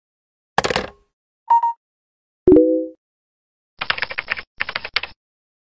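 A string of intro sound effects: a VHS cassette pushed into a VCR with a clunk, a short beep, a sharp hit with a brief ringing tone, then a second and a half of rapid clicking in two runs.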